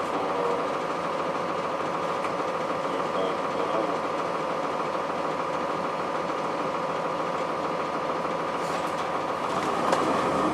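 Cummins ISC diesel engine of a 2002 Blue Bird CS transit bus running steadily, with a constant whine over the engine noise.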